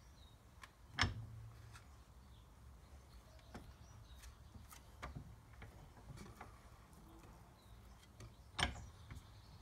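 Scattered clicks and knocks from a steel suspension arm and a polyurethane bush being handled and re-seated in a bench vise, with a sharper knock about a second in and another near the end.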